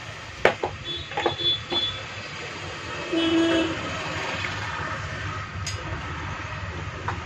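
Sharp clicks and knocks of hands handling a car stereo's circuit board and pressing on its plastic wiring connector, several in the first two seconds and a couple more near the end, over a steady low background rumble. A brief pitched tone sounds a little after three seconds in.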